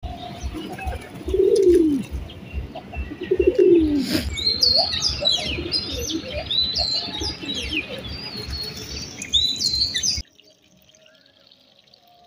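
Domestic pigeons cooing twice in low rising-and-falling calls, then a busy chorus of small songbirds chirping from about four seconds in. The sound drops away abruptly near the end.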